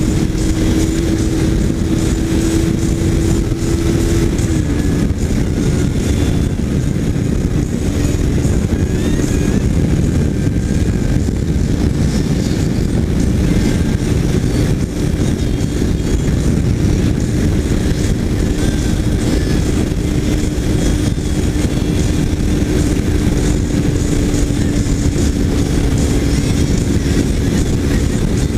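Kawasaki Ninja 300 parallel-twin motorcycle engine running at a steady cruise during a ride. A steady hum drops slightly in pitch about four seconds in, over a heavy low rumble.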